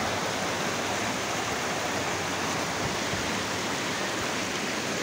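Muddy floodwater rushing down a street and churning around parked cars' wheels: a steady, even rush.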